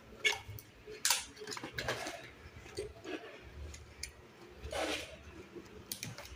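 Small electronics packaging being handled and opened: scattered clicks, taps and rustles at irregular intervals, with a longer rustle just before the end.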